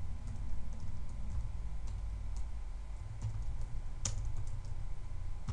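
Keystrokes on a computer keyboard as a name is typed in, scattered light clicks with one sharper click about four seconds in, over a low steady hum.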